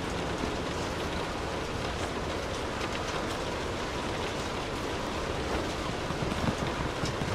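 Steady rain falling, an even hiss with scattered drop ticks, over a low steady hum that swells near the end.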